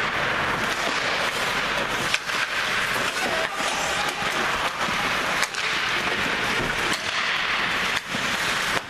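Ice hockey in play: skates scraping and carving the ice, with sharp clacks of sticks and puck every second or two.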